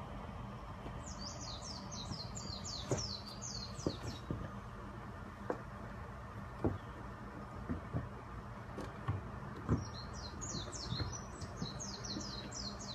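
A small songbird sings two rapid trills of short, high, down-slurred notes, one about a second in and one near the end. Between them come scattered soft thumps as kittens tumble and pounce on a hardwood floor.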